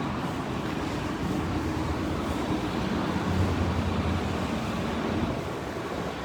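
Steady city street noise: a low rumble of traffic, swelling slightly around the middle.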